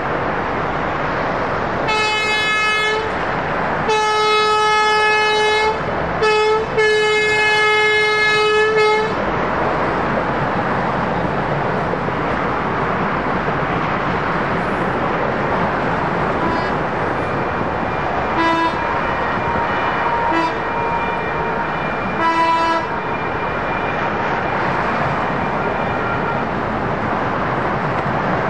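Siemens Duewag U2A light rail train horn sounding the long, long, short, long crossing signal, a single steady pitch, with a fainter horn giving three short blasts later. The horns are sounded because the crossing is under a stop-and-use-horn order, and the trains roll past throughout with a steady rumble.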